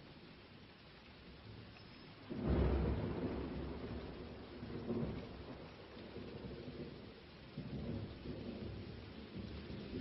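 Thunder: a sudden loud clap about two seconds in that rolls on as a low rumble, swelling again twice.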